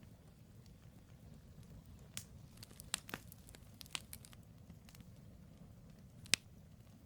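Wood campfire burning: scattered sharp crackles and pops from the burning logs, the loudest a single pop near the end, over a low steady rumble.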